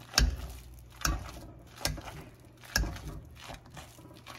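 Metal potato masher pressing through mashed potatoes and knocking on the bottom of an enamelled pot: about one dull thump a second, four strong ones and then fainter ones near the end.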